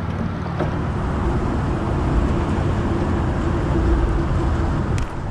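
Wind buffeting the microphone on open water: a steady low rumble, with a faint steady hum for a few seconds and a couple of light clicks.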